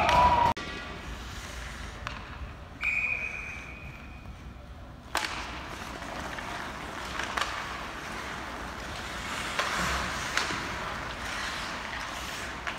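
Hockey game rink noise: skates scraping and sticks knocking. A single steady whistle blast, likely the referee's, comes about three seconds in, and a sharp crack of stick or puck about five seconds in.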